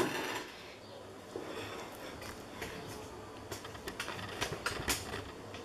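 Quiet room with a steady low hum and scattered light clicks and knocks from a handheld camera being moved and handled.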